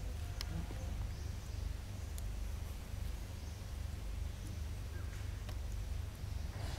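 Outdoor ambience: a steady low rumble with a few faint, short high ticks scattered through it.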